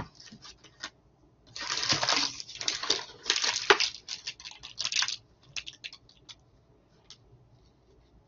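Rustling and handling noise in several bursts, followed by a few scattered clicks.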